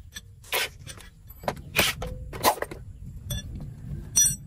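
Hand tools working on metal parts of a clutch repair: a few short scraping strokes, then a metallic clink with a ringing tone near the end.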